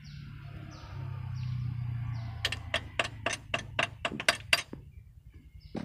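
A quick run of about nine sharp metallic clicks, roughly four a second, from a hand wrench working on the bolts of a Scania truck's gearbox high/low range servo. A low steady hum sits underneath before the clicks begin.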